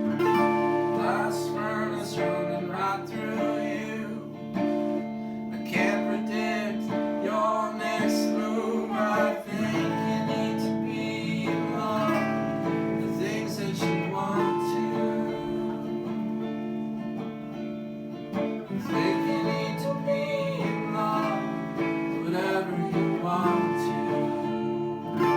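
Guitar music: plucked and strummed guitar notes over steady sustained chords, played right after a spoken count-in.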